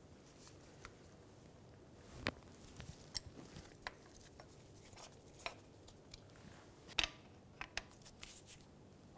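Faint, scattered metal clicks and light scrapes of a Phillips screwdriver working the small retaining screws out of a brake rotor. The sharpest click comes about seven seconds in.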